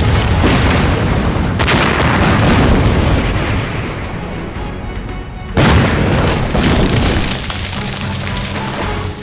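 Three explosions in a film battle scene, each a sudden blast that rumbles away: one at the start, a second about a second and a half later, and a third near the middle, under a dramatic music score.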